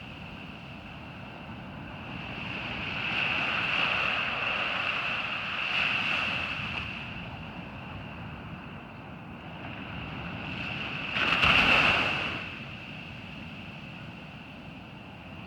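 Ocean surf breaking and washing up a sandy beach in slow swells, the largest wave surging in loudest about three-quarters of the way through.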